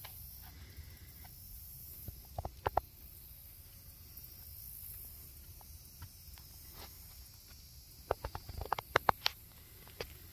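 Footsteps on a trail: a couple of sharp crunches a few seconds in, then a quick cluster of steps near the end, over a steady low rumble.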